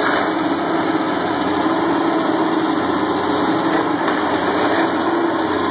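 Caterpillar 330B hydraulic excavator's diesel engine running steadily while it demolishes a wood-frame house, with a few faint knocks from the breaking debris.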